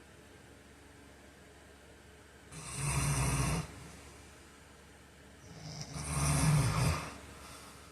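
A man snoring in his sleep: two loud snores about three seconds apart, the first about two and a half seconds in, each lasting a second or so.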